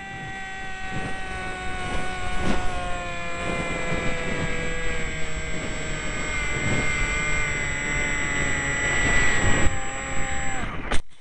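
Electric motor and propeller of a small foam RC combat plane, heard from a camera on the airframe: a steady whine whose pitch slowly sags, with gusts of wind rush over it. Near the end the whine drops and cuts off abruptly.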